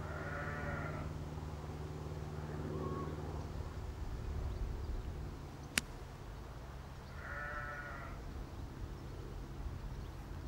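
Sheep bleating twice, once at the start and again about three-quarters through. Just past halfway a single sharp click: a golf club striking the ball on a pitch shot.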